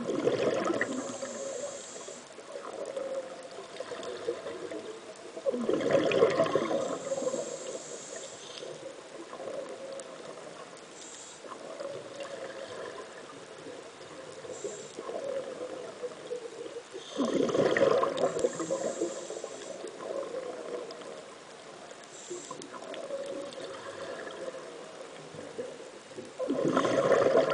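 Underwater scuba exhalation bubbles from a diver's regulator, heard as four bubbling bursts of about two seconds each. Between them is a quieter, steady wash of water noise.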